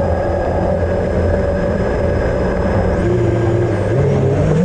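Racing quadcopter's brushless motors (Cobra 2207 2450KV) humming steadily at idle while armed on the ground. Near the end the pitch starts to rise as the throttle comes up.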